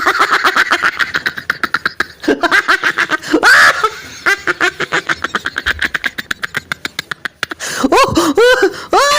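Laughing sound effect: long runs of rapid, pulsing snickering laughter, ending in a few squealing cries that rise and fall in pitch.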